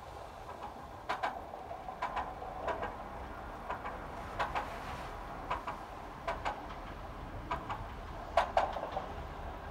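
A JNR-era diesel railcar approaching along the track, its wheels clicking over the rail joints in quick pairs about once a second. The clicks grow louder toward the end.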